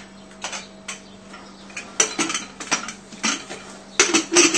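Aluminium pressure cooker being closed: sharp metal clinks and clacks of the lid against the pot rim as it is fitted and twisted shut, with a few light taps first and a quick cluster of knocks in the second half.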